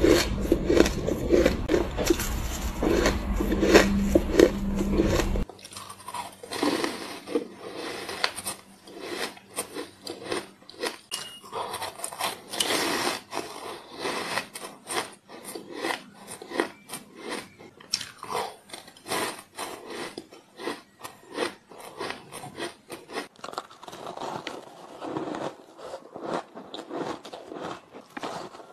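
Soft frozen ice being bitten and chewed close to the microphone: dense crunching, bite after bite. It is louder with a low hum underneath for about the first five seconds, then changes abruptly to quieter, crisper crunching.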